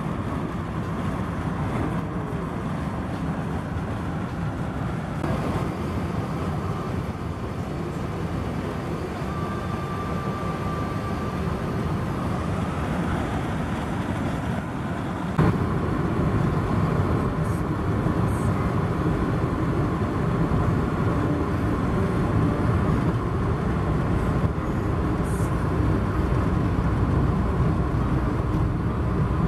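Steady road and engine noise inside a moving car's cabin, stepping up a little in loudness about halfway through.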